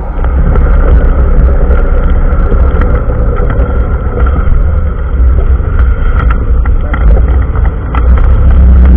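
John Deere 6420 tractor's four-cylinder diesel running steadily, heard close up from a microphone on the bonnet: a loud, deep rumble with small rattles and clicks from the front loader carrying a round bale.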